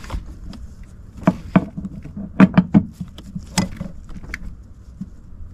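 Irregular sharp clicks and knocks of metal parts as a new AC expansion valve is pushed into place against the evaporator and its line fittings, with several in quick succession a little past halfway.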